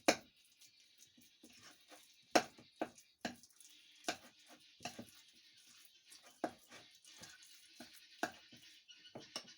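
Irregular light clicks and knocks, about eight spread out, from hands handling siomai wrappers and dishes on a kitchen counter, over a faint hiss.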